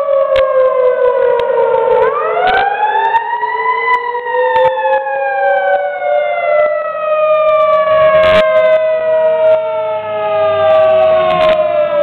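Fire engine siren wailing, its pitch sweeping up quickly and sliding slowly back down, over and over, as the truck approaches. The truck's engine can be heard underneath as it draws near.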